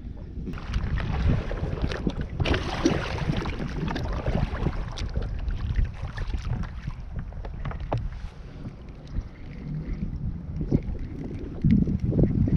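Wind rumbling on the microphone, with scattered light knocks and rustles of a kayak and gear being handled, and a louder gust near the end.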